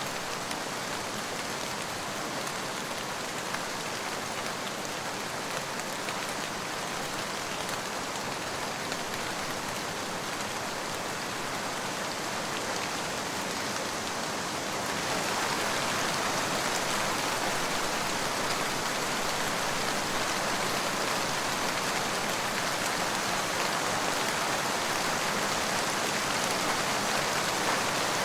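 Steady rain falling, a continuous hiss of drops that becomes noticeably louder about halfway through.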